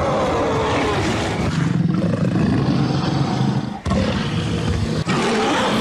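Edited Gorgonopsid creature sound effect: deep animal-like roars and growls. There are three in a row: one long roar, then two shorter ones after brief breaks about four and five seconds in.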